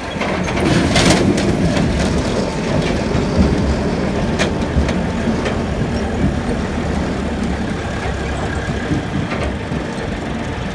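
Massey Ferguson 285 tractor's four-cylinder diesel engine running under load as it pulls a trailer full of sugar beets, with the loaded trailer clattering as it rolls over gravel.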